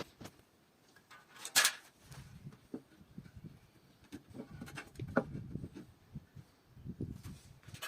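Workshop handling sounds on wood: one short, sharp scrape about one and a half seconds in, then low, irregular knocks and shuffling with a few small clicks.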